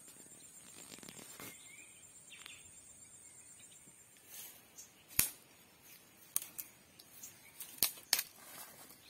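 Five sharp cracks in the second half, twigs snapping as branches are pulled by hand. Before them, a steady high insect drone fades out and a single bird chirp is heard.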